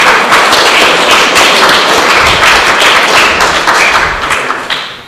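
Studio audience applauding a correct answer, a dense run of hand claps that dies away near the end.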